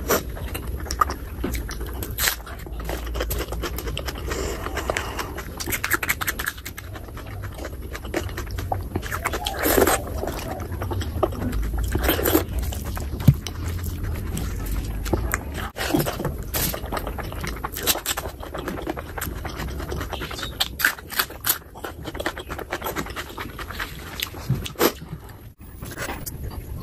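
Close-miked eating of chicken skin curry and rice by hand: wet chewing and lip smacks with many short sharp clicks, and the squish of fingers squeezing rice into the curry.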